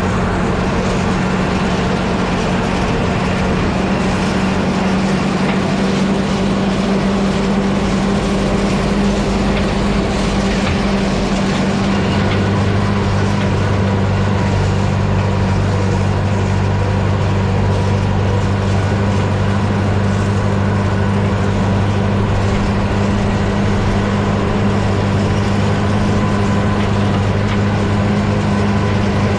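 Case 830 tractor engine running steadily while pulling a V-rake through hay. About twelve seconds in, a deeper steady hum joins it.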